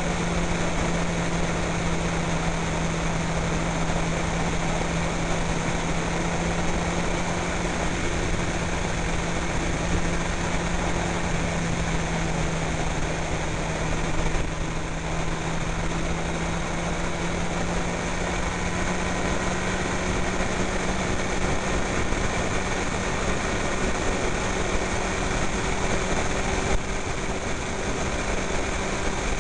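Honda CBR sportbike engine pulling steadily at cruising speed, its note creeping slightly higher in the second half, over a constant rush of wind and road noise.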